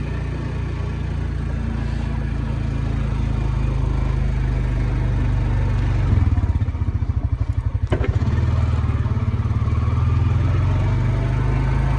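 Four-wheeler (ATV) engine running steadily, growing louder and pulsing about halfway through. A single sharp click or knock near the two-thirds mark.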